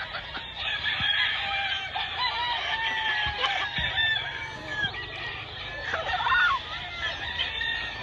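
Several roosters crowing over one another, mixed with clucking. The loudest call rises in pitch about six seconds in.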